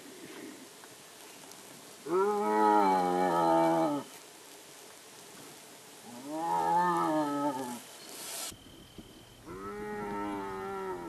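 Striped hyena calling: three long drawn-out calls of about two seconds each, each rising a little and then falling in pitch. The first is the loudest and the last the faintest.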